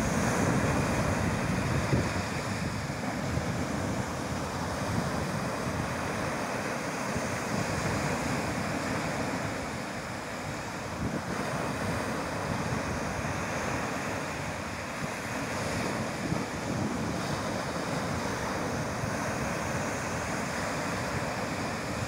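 Small sea waves breaking and washing up a pebbly beach in a steady surf, with wind buffeting the phone's microphone.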